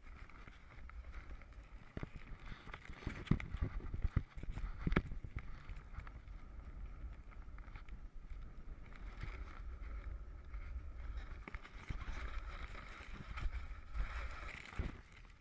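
Wind buffeting a GoPro's microphone, a steady low rumble with a hiss above it, broken by a few sharp knocks about two to five seconds in.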